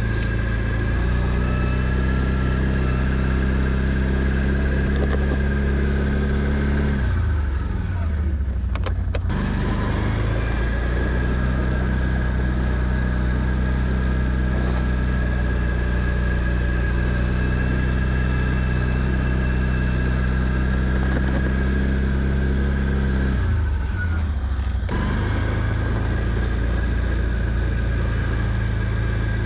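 Can-Am Outlander 650 ATV's V-twin engine running steadily while snow plowing, its revs dropping away twice, about a quarter of the way in and again most of the way through, then picking back up.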